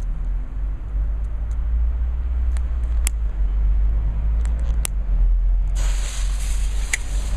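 A low rumble with scattered sharp clicks, then about six seconds in a firework fountain ignites with a sudden loud, steady hiss of spraying sparks.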